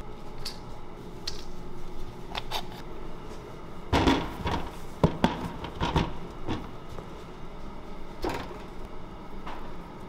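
Knocks and clatter of a lidded plastic food-storage container being handled in an under-counter cabinet. Several loud knocks come close together around the middle, with scattered light clicks before and after.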